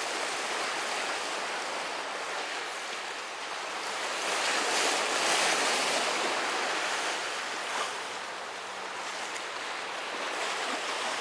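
Sea waves surging and washing over breakwater rocks and tetrapods, a steady hiss that swells about four seconds in and eases off again.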